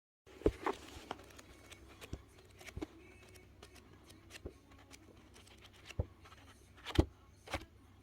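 Irregular light knocks and clicks over faint room noise, the loudest about half a second in and again about seven seconds in.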